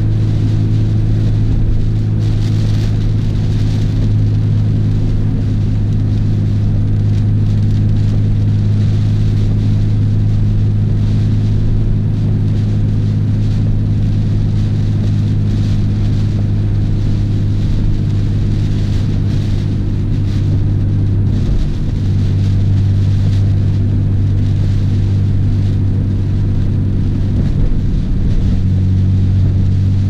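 Nissan R32 Skyline GT-R's twin-turbo straight-six running at a steady cruise, heard from inside the cabin, with heavy rain and road spray hissing against the car. The engine note drops slightly about two-thirds of the way in and picks up again near the end.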